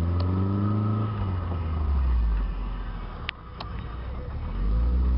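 Nissan 240SX's 2.4-litre four-cylinder engine running as the car is driven, its pitch rising and falling, easing off about three seconds in and picking up again near the end, with two sharp clicks in the lull.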